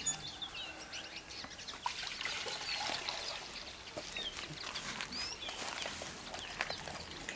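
Small birds chirping over and over, with soft pouring and light knocks as something is tipped from a plastic bucket into a dog's bowl.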